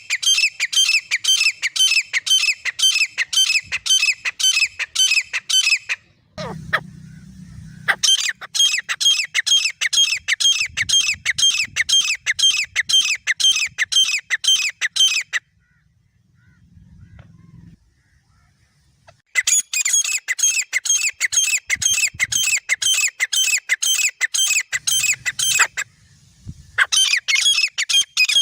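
Grey francolin pair calling: long runs of shrill, fast-repeated notes, about three to four a second, in three bouts broken by short pauses.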